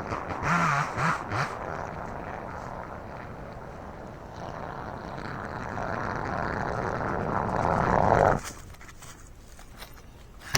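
Small chainsaw running through a cut, getting louder before stopping abruptly about eight seconds in. A sharp knock right at the end.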